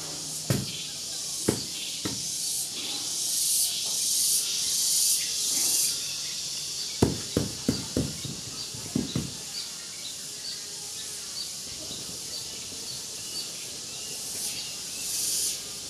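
Insects buzzing in a steady high hiss that swells and fades in waves, with a small chirp repeating about twice a second. A few dull knocks come near the start and in a quick cluster about seven to nine seconds in.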